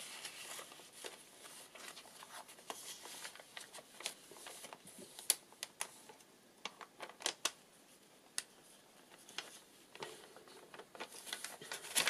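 Paper pages and card tags of a handmade journal being handled and turned: faint rustling with light, sharp clicks and taps scattered through, most of them around the middle.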